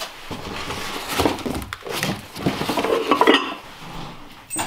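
Hard objects clattering and clinking as a cardboard box of stored things is rummaged through, the knocks irregular; the noise dies down a little over three seconds in.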